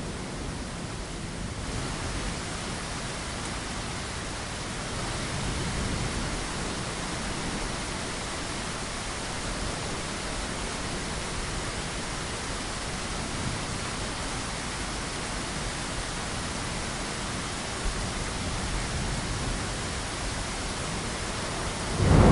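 Steady rain, an even hiss. Right at the end a thunderclap breaks in suddenly, loud and low.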